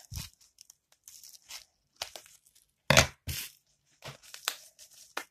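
A small package being torn open by hand: short bursts of tearing and crinkling, loudest twice about three seconds in.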